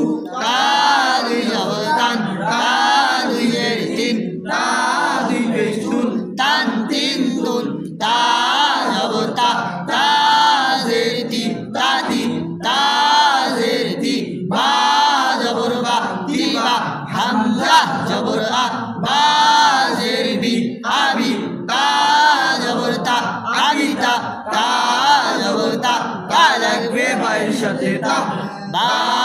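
A group of voices reciting Arabic letter syllables and their spellings together in a rhythmic chant. Short pauses fall between phrases.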